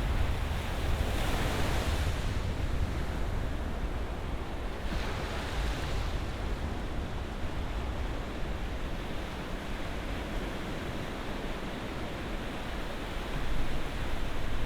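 Ocean surf: waves breaking and washing in over a steady low rumble, with two hissing surges of foam about one and five seconds in.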